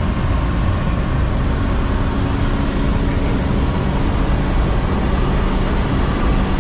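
Studio tour tram running steadily, heard from on board: an even, continuous vehicle rumble and road noise with a faint steady hum and a thin high whine.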